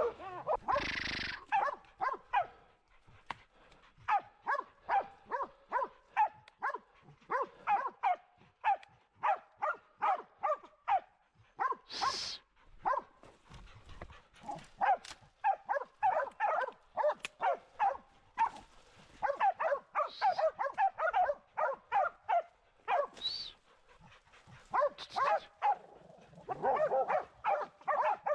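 Hunting dogs barking in quick, continuous, overlapping barks: baying at a wild boar they have brought to a stand. A few louder noisy bursts break in, one near the start and two more further on.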